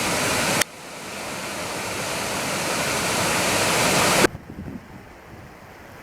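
Steady rush of a waterfall, a hiss of falling water with no pitch to it. It breaks off abruptly about half a second in and again about four seconds in; between the breaks the rush gradually grows louder, and after the second break it is quieter and duller.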